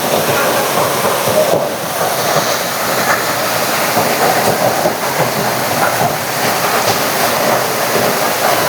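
A waterfall's falling water: a loud, steady rush of noise with no breaks.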